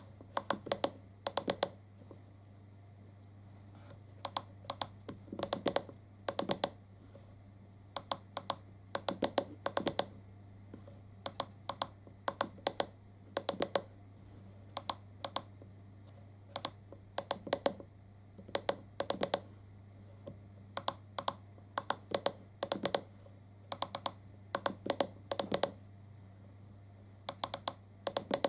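Buttons on a handheld iCarsoft LR V1.0 car diagnostic scan tool being pressed, clicking in quick clusters of two to four about every second as its menus are scrolled and selected, over a steady low hum.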